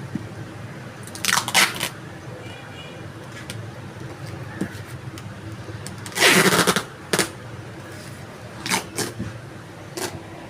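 Packing material being handled: several short rustling, crinkling bursts of plastic wrap. The longest and loudest comes about six seconds in, over a steady low room hum.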